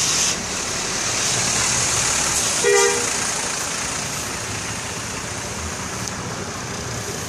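A bus horn sounds one short toot about three seconds in, over steady traffic and engine noise.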